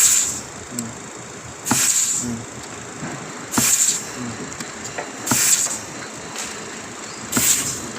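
Compressed-air blow gun giving short blasts of air, five hisses about two seconds apart, in work on an automatic transmission's clutch assembly.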